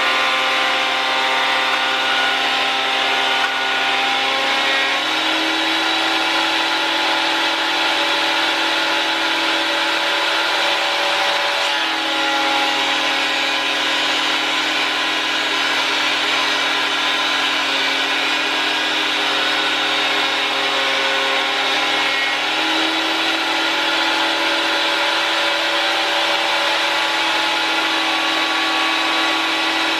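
Güde GADH 200 planer-thicknesser, a 1250 W motor driving a two-knife cutterhead, running steadily while planing a board fed through in thickness mode. Its pitch steps up and down a few times as the load of the cut changes.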